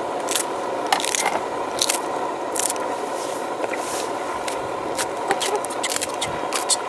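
Irregular scrapes and clicks of spoons and tableware over a steady hiss.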